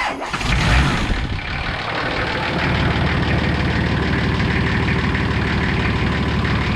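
Nissan TD42T indirect-injection inline-six turbo diesel starting up and settling into a steady idle after about two seconds.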